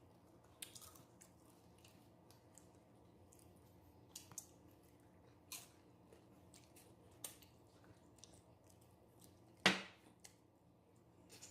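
Close-up chewing and crunching of tortilla chips from nachos: soft, irregular crisp crunches spaced a second or so apart, with one much louder, sharper crunch or knock about ten seconds in, over a faint steady hum.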